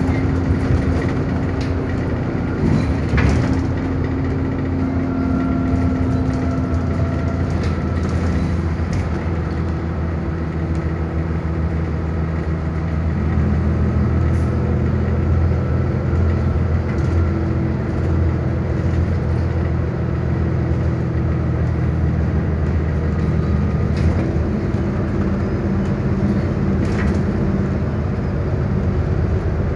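Double-decker bus on the move, heard from inside its upper deck: a steady low engine drone and road noise, with occasional clicks and knocks. The engine note shifts about halfway through.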